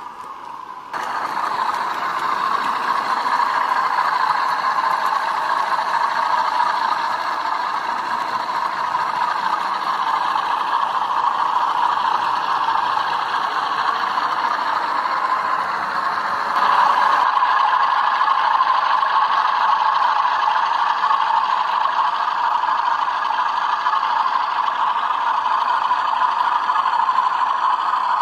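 Model train running with its wheels and body clattering over the track, heard through a small camera riding on the train, as a steady, noisy rattle. It gets louder about a second in and again a little past halfway.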